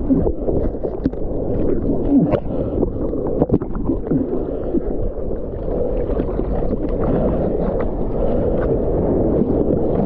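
Broken surf churning and splashing around a surfboard-mounted camera at the waterline, which dips under the foam at times. Bubbling gurgles and sharp splashes in the first few seconds, then a steadier rushing wash.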